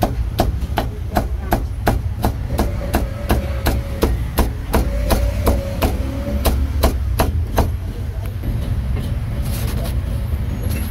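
Cleaver chopping cooked meat on a cutting board: a steady run of sharp chops, about three a second, that stops about two-thirds of the way through.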